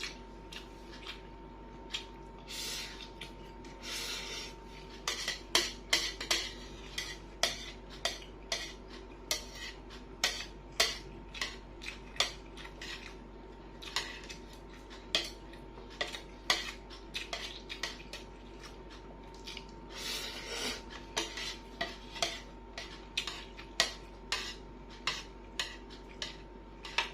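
Cutlery clinking and scraping against a plate during a meal: many sharp clicks, with a few short stretches of scraping.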